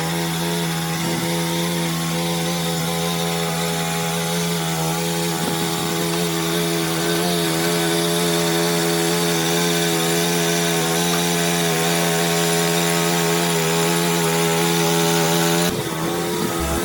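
An electric power tool's motor running steadily with an even whine, changing abruptly near the end.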